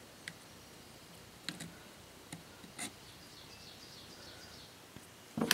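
Faint, sparse clicks and taps of small carburetor parts (float, pin and needle valve on a Walbro LMT carburetor) being fitted by hand, with a louder knock near the end.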